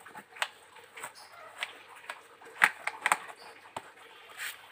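Soft cloth rustling with scattered sharp clicks and creaks as a damp cloth is pressed and tucked down over seed in a woven bamboo basket; the sharpest clicks come about two and a half and three seconds in.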